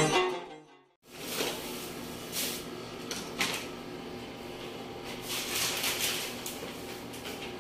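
Acoustic guitar music fades out within the first second. After a brief silence, a room's background follows, with scattered soft rustles and knocks, a cluster of them about five to six seconds in.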